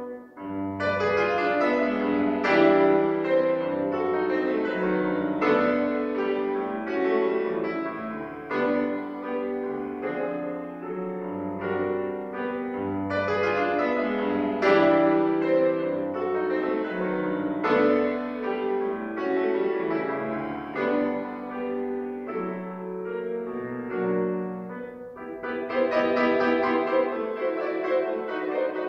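Steinway & Sons concert grand piano played solo in a classical piece, with many quick notes over a changing bass. After a brief break right at the start the playing runs on without pause and grows louder and busier near the end.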